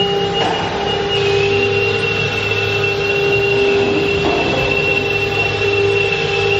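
CNC router spindle running at speed with a steady high whine, over a constant low machine hum and rush of air, with a couple of brief changes in the noise as the head works.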